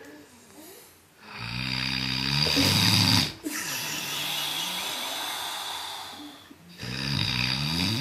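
A man snoring heavily in his sleep. A loud snore of about two seconds is followed by a noisy breath of about three seconds, and a second snore begins near the end.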